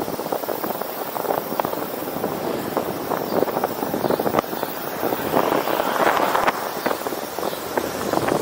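Wind rushing and crackling over the microphone of a bicycle rider moving at road speed, with a louder gust about six seconds in.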